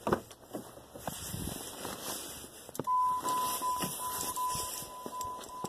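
A few knocks and clicks, then about three seconds in a car's warning buzzer starts: one steady high beep tone that keeps sounding, as the lights are switched on with the door open.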